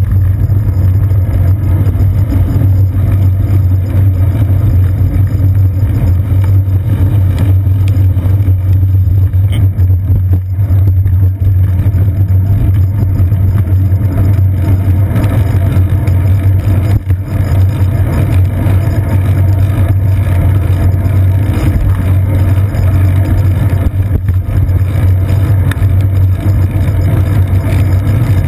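Steady, loud low rumble of wind buffeting and road vibration picked up by a GoPro Hero 2 in its housing, mounted on the seat post of a moving bicycle, with tyre noise from the wet road.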